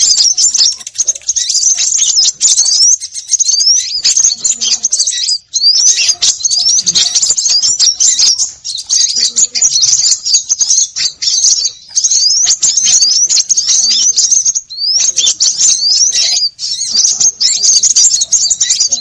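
A dense, noisy chorus of many small birds chirping and twittering at once, high-pitched, with many quick rising notes, as played in a bird-trapping lure recording.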